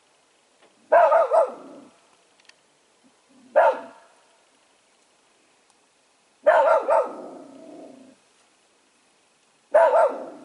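Soft-coated wheaten terrier barking in four short bouts a few seconds apart, one to three barks each, directed at the white-sheeted 'ghost' figures that are the threat stimulus of the MH mentality test.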